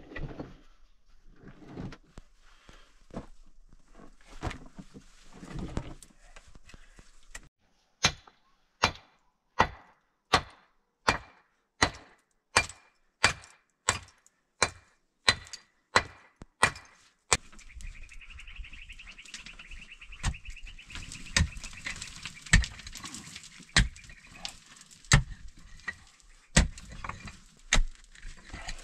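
Large stones being shifted and scraped in dirt, then a hammer striking stone in an even run of about fourteen blows, roughly one every 0.7 seconds. After that come heavier, more widely spaced hammer blows.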